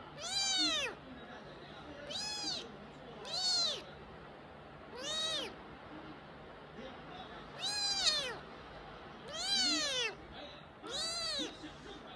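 Fluffy grey kitten meowing over and over: seven short, high calls, each rising and then falling in pitch, one to two seconds apart.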